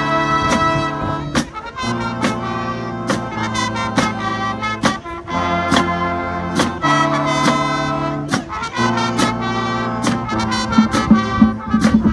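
High school marching band playing: the brass holds full chords, each lasting a second or two, punctuated by sharp drum and cymbal hits.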